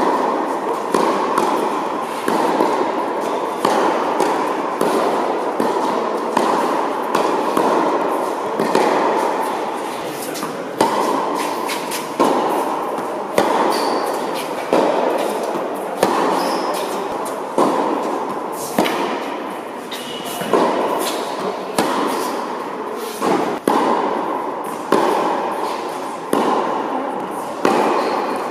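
Tennis balls struck by rackets and bouncing on a hard court in a baseline rally: a sharp hit about every second and a half, each ringing on in the echo of a large indoor hall.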